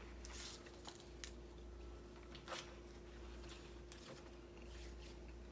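Faint, scattered rustles and crinkles of candy wrappers and packing paper being handled, over a steady low hum.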